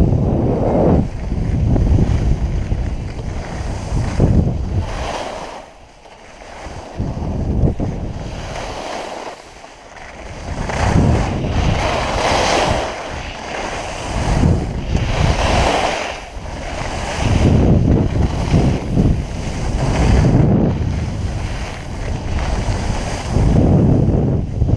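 Wind buffeting the microphone of a skier's GoPro during a downhill run, with the hiss of skis scraping over granular snow; the rush swells and drops in surges every few seconds as the skier turns and picks up speed.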